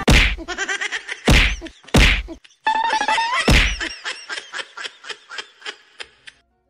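Comedy whack sound effects: four loud whacks, each with an echoing ring, a short rising tone after the third, then a run of quick repeats fading out.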